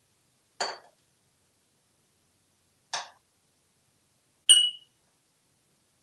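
An African grey parrot knocking a wrench against a sink countertop: three short clinks, about a second in, three seconds in and four and a half seconds in. The last is the loudest and rings briefly.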